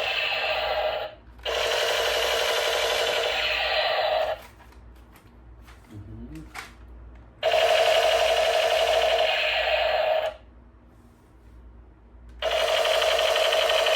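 Battery-powered toy gun's electronic sound effect played through its small speaker: a rapid pulsing burst about three seconds long, repeated four times with short gaps holding a few light clicks.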